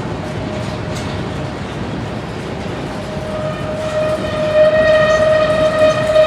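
Freight train rolling by with a steady rumble. From about three seconds in, a single high sustained tone swells up and holds.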